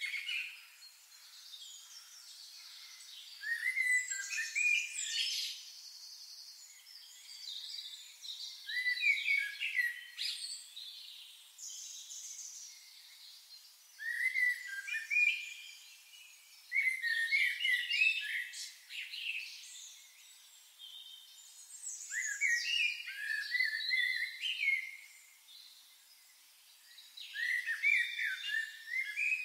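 Songbirds singing: short, warbled phrases of a second or two, repeated about every five seconds, with a faint haze of other calls in the gaps.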